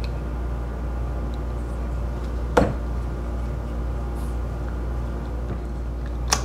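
Cast end cap of an Avey repulsion induction motor being fitted onto the armature shaft by hand: one sharp metal knock about two and a half seconds in and a lighter click near the end. A steady low electrical hum runs underneath.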